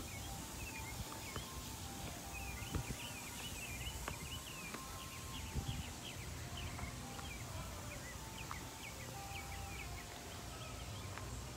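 Small birds chirping, a busy string of short high calls all through, over a low steady outdoor rumble. Two soft thumps a few seconds apart.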